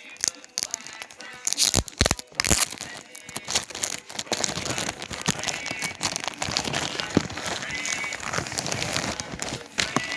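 Crinkling and rustling of packaging being handled, a dense run of crackles and clicks, sharpest in the first few seconds.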